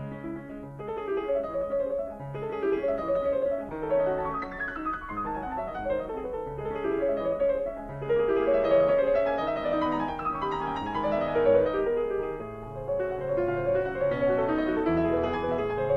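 Background piano music: a steady flow of notes with occasional descending runs.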